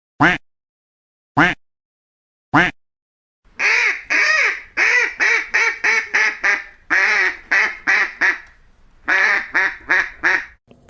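Duck quacking: three single quacks about a second apart, then, from about three and a half seconds in, a fast run of quacks, several a second, broken by a couple of short pauses.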